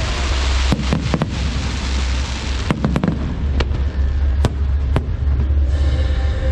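Aerial fireworks bursting: a string of sharp bangs at irregular intervals over a continuous low rumble and crackle. Faint music comes in near the end.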